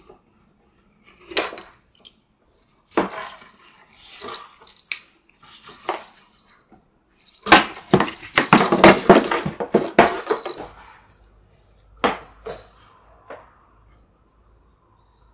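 A cat's claws scratching and scrabbling against a cardboard box as it grabs and wrestles a feather teaser. The scratching comes in several spells, the longest and loudest lasting about three seconds in the middle.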